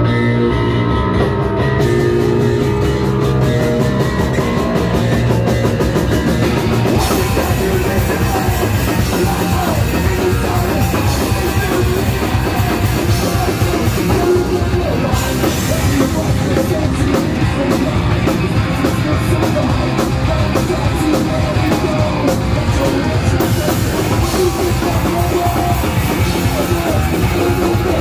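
Live rock band playing loud: electric guitars, bass guitar and drum kit, with the singer at the microphone. The sound fills out with more cymbal-bright top end a couple of seconds in.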